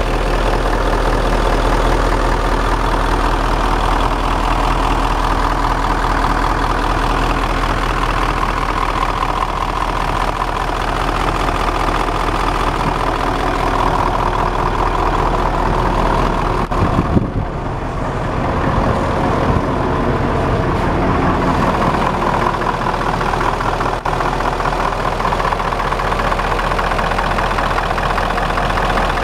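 Nissan diesel engine of a Niigata rotary snow blower idling steadily. A brief thump comes about 17 seconds in.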